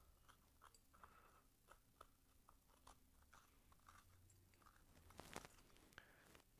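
Faint, irregular scraping of a serrated grapefruit knife digging seeds and stringy membrane out of the hollow of a raw butternut squash, with one louder scrape about five seconds in.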